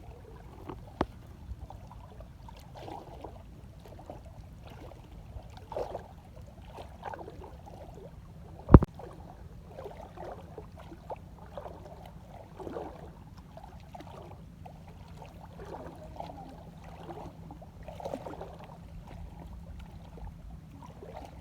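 Water and mud sloshing and splashing over a steady low rumble, with one sharp knock about nine seconds in.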